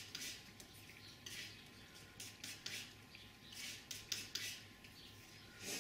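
A steel palette knife scraping and smearing oil paint across a palette as the colours are mixed together. It comes as a series of short, irregular soft scrapes.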